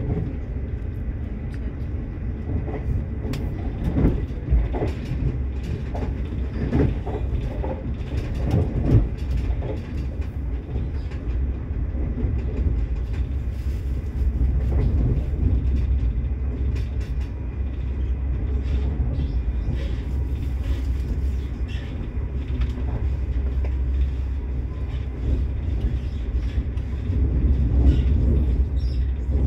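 Passenger train running at speed, heard from inside the carriage: a steady low rumble with scattered knocks and clatters from the wheels on the track, thickest in the first ten seconds, and a little louder near the end.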